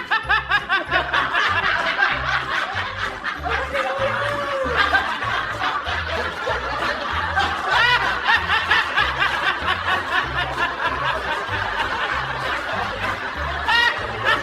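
Continuous rapid chuckling laughter over background music with a steady bass beat.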